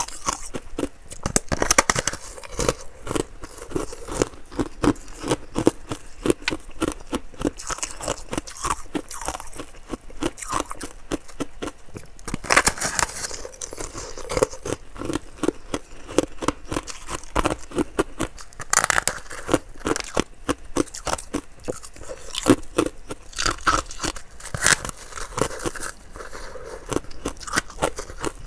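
Ice being bitten and chewed close to the microphone: a dense run of crisp crunches, several a second, with a few louder, fuller bites spaced through it.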